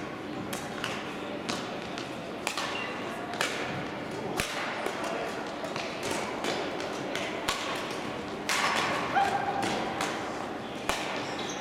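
Badminton rackets striking shuttlecocks in rallies on several courts at once: sharp, irregular hits, about one or two a second, echoing in a large sports hall.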